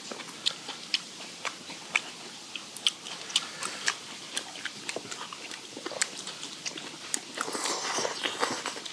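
Close-miked eating sounds of people chewing steamed skate with bean sprouts and water parsley: scattered sharp mouth smacks and crunches, with a longer slurp near the end.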